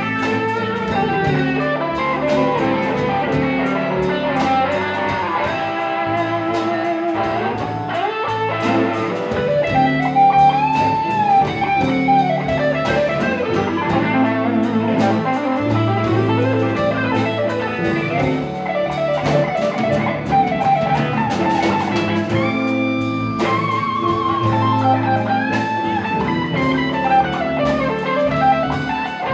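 Live blues band playing an instrumental passage: an electric guitar solos with bent, wavering notes over bass, drums and keyboards.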